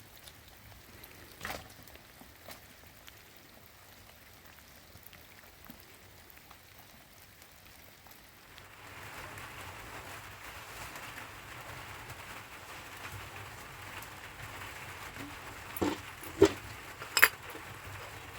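Rain falling: a steady hiss that starts about halfway in, with a few sharp knocks near the end.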